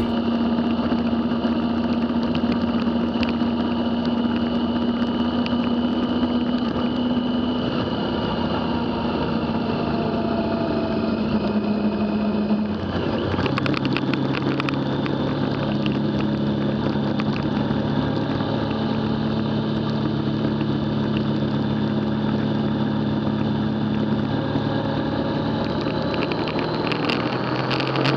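Motorcycle engine running at steady road speed with wind noise. About halfway through, the engine note steps down to a lower pitch.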